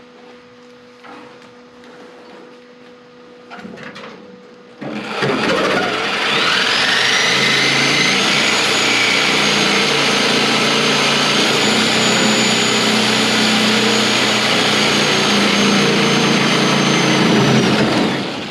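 A cut-off wheel grinding into sheet steel. It starts about five seconds in, its whine rising to a steady pitch as it comes up to speed, runs loud and steady for about twelve seconds, and winds down just before the end.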